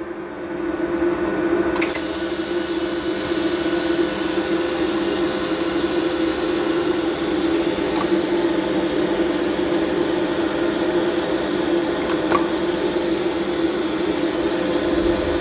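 TIG welding arc from a GTP inverter welder running in four-stroke trigger mode: a steady, even hiss that comes on about two seconds in and holds, over a low steady hum.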